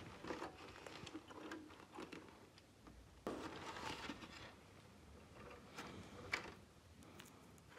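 Faint handling noises on a workbench: scattered clicks and rustling, a longer scraping rustle about three seconds in, and a sharp click a little after six seconds.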